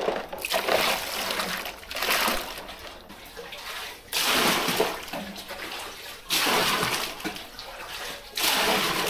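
Water poured from a plastic dipper splashing into a plastic basin full of dishes, in about five separate pours a second or so long each, as the dishes are rinsed.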